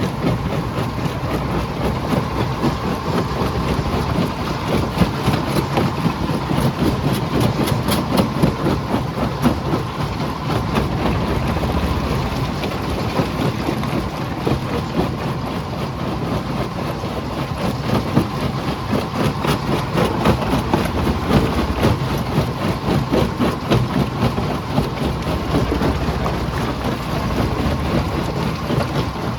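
Jaw crusher running, with a steady heavy machine noise and a continuous clatter of rock cracking and rattling as it is crushed.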